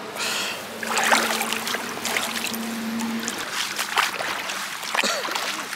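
Shallow lake water splashing and sloshing, and dry reed stalks crackling underfoot as someone steps out of the water onto the bank, in a run of short irregular crunches and splashes.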